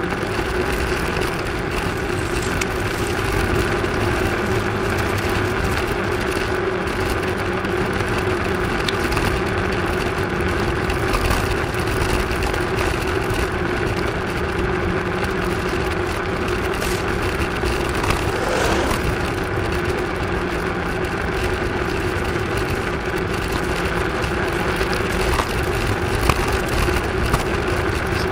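Bicycle tyres rolling along a paved path, a steady hum with one constant low tone over rushing road noise.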